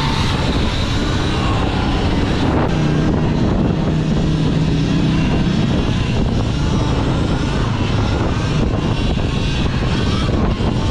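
Steady wind rush and road noise from riding an electric dirt bike at speed, with no engine note.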